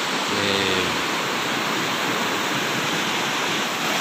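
Shallow, fast river rushing over and around boulders in rapids, a steady, even rush of water.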